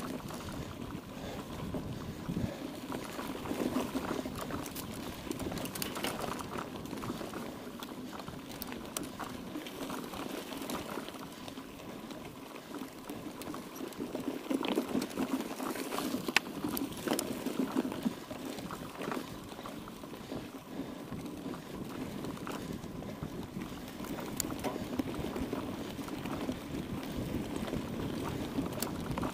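Mountain bike being ridden off-road: a steady rushing crunch of tyres on the trail, with rattles and scattered sharp clicks from the bike. The noise swells louder a few times.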